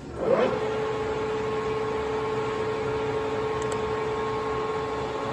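Harrison M-400 geared-head lathe spindle starting up with a brief rising surge, then running steadily with an even hum and a clear steady tone from the headstock.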